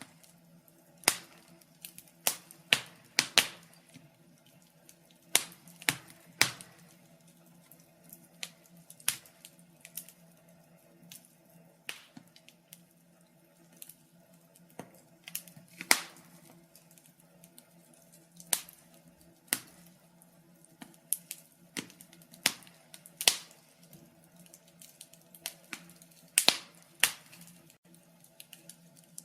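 Wood fire crackling, with irregular sharp pops and snaps, a few of them loud, over a faint steady hum.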